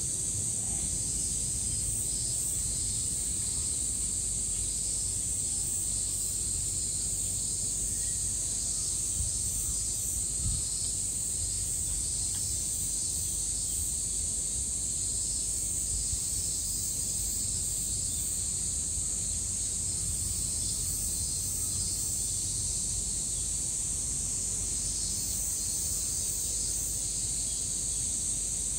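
Steady high-pitched buzzing of a summer cicada chorus, with a couple of faint knocks about ten seconds in.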